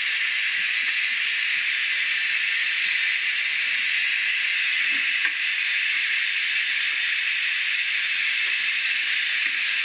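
Makrout semolina pastries deep-frying in hot oil: a steady, even sizzle.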